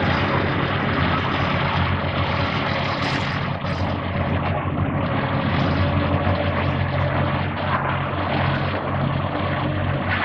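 Diesel engines of demolition excavators running on site, a steady low hum that grows a little stronger about halfway through, over a broad rumble of machinery.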